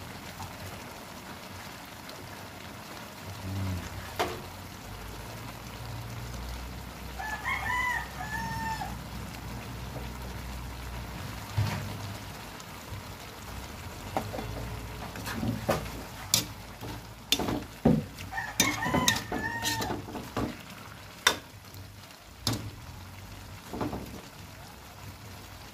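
A rooster crows twice in the background. In the second half there is a quick run of sharp clinks as a ladle knocks against the metal cooking pot.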